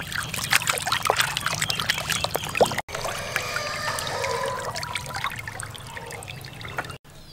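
Water sloshing and splashing in a plastic basin as hands scrub a whole plucked chicken. After a brief break about three seconds in, water trickles and drips off the lifted chicken back into the basin.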